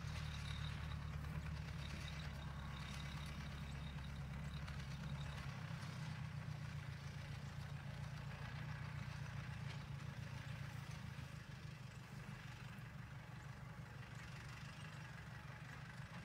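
A vehicle engine idling steadily as a low, even hum.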